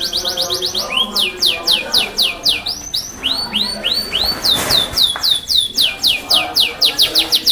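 Yorkshire canary singing loudly: fast runs of repeated, downward-sweeping whistled notes, switching to a new phrase every second or so.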